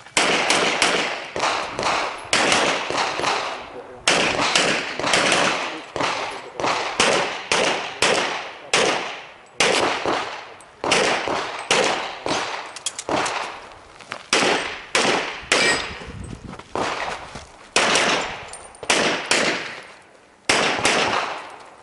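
Pistol shots in rapid succession, fired mostly in quick pairs and short strings with brief pauses between groups, each crack followed by a short echo. This is a shooter's run through a practical shooting stage.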